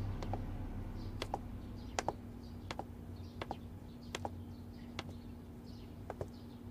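Footsteps of a woman's heeled shoes on a hard floor: sharp clicks, each step a quick double click, at a walking pace of about one step every three-quarters of a second.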